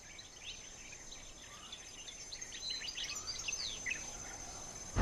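Birds chirping in outdoor ambience: many short, quick calls of varying pitch, busiest in the middle. A faint steady high tone sits beneath them.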